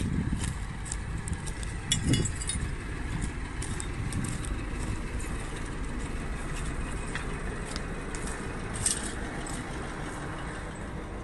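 Steady low rumble of wind and handling noise on a phone microphone, with scattered light clicks and crunches, the loudest about two seconds in and again near the end, as someone walks over debris.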